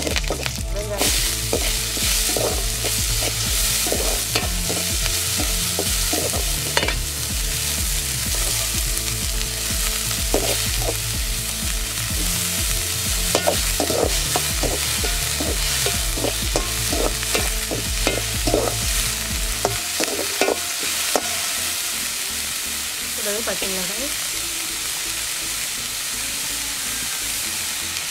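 Tempering for lemon rice sizzling steadily in hot oil in a steel kadai, while a ladle stirs and scrapes the pan in short, irregular strokes.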